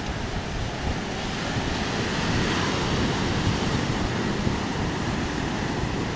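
Steady wash of sea surf breaking on the shore, with wind rumbling on the microphone.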